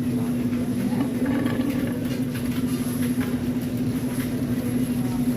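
A steady mechanical hum: one constant low tone over a rumbling noise.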